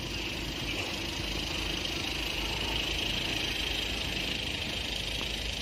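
Steady street traffic noise, with vehicle engines running.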